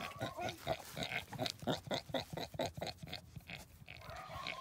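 Pig grunting in a quick run of short, soft grunts while being scratched on the head, easing off after about three seconds.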